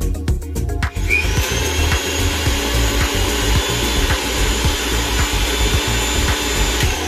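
Prestige Iris Plus 750-watt mixer grinder motor running with no jar fitted: a steady high-pitched whine that starts about a second in and stops near the end. Background music with a steady beat plays underneath.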